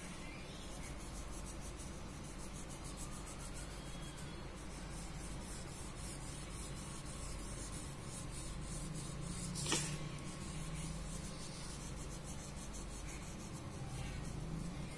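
Crayon scribbling back and forth on paper in quick repeated strokes, a steady scratchy rubbing. One sharp tap comes about two-thirds of the way through.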